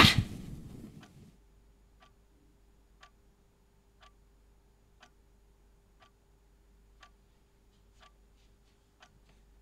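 A clock ticking about once a second in a quiet room, over a faint steady hum. It opens on the tail of a loud jump-scare burst that fades out within the first second.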